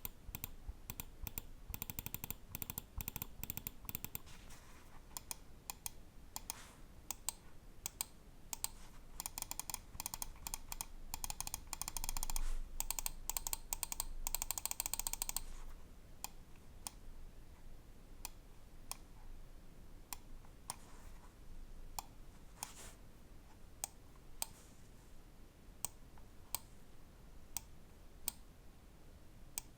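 Lamzu Maya 4K gaming mouse being clicked and scrolled: runs of rapid ticking, like its scroll-wheel encoder notches, in the first half, then single switch clicks about once a second for the rest.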